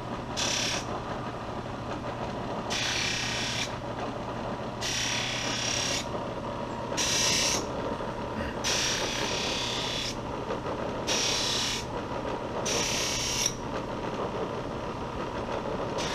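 Bench buffer running steadily as a carbon steel Mora knife blade is pressed against the spinning buffing wheel in short strokes. There are seven hissing rasps of under a second each, roughly every two seconds. The finer-grit compound is polishing rust off the blade.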